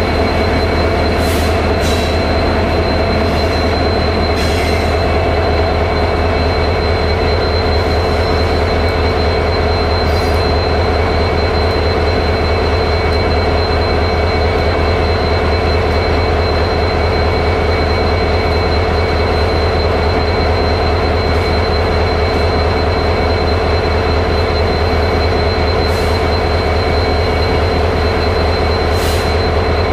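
WDP4 diesel-electric locomotive's two-stroke EMD 16-cylinder engine idling close by: a steady, loud engine drone with a thin high whine on top and a few faint clicks.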